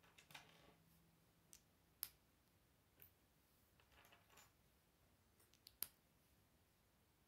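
Plastic Lego bricks being handled and pressed together: a few faint clicks, the sharpest about six seconds in, with brief soft rustling of fingers on the pieces.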